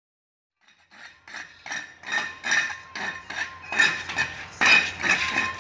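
A steel hoe blade striking and scraping stone paving as it chops weeds from the joints: a quick, regular run of metallic clinks, about two or three a second, starting about a second in and growing louder.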